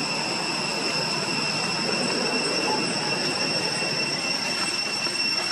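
Steady outdoor ambience: a continuous high-pitched drone held on one pitch over a rushing background noise.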